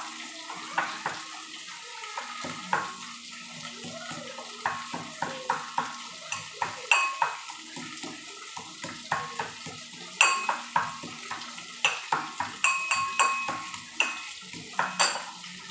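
A cooking spoon stirring cauliflower frying in a metal kadai, clinking and scraping against the pan several times a second in an uneven rhythm, with a metallic ring on the sharper knocks.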